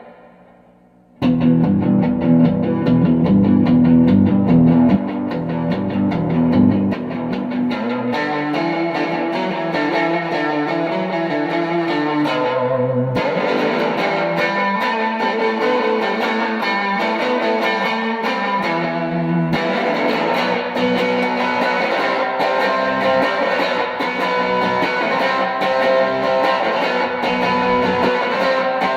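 Electric guitar played through a vintage Echoplex EP-2 tube tape delay unit, starting abruptly about a second in, with low riffing first, then higher chords and lines.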